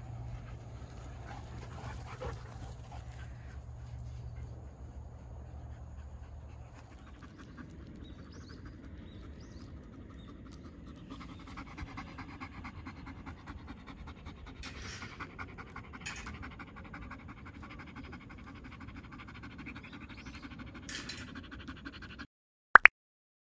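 A black wolfdog panting steadily and rhythmically with its tongue out, after a low rumble in the first few seconds. Near the end the sound cuts out and a brief, loud rising tone sounds.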